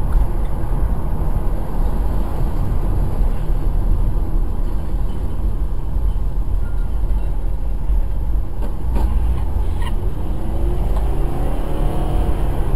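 Car driving: a steady, loud low rumble of engine and road noise with no clear rhythm or pitch changes.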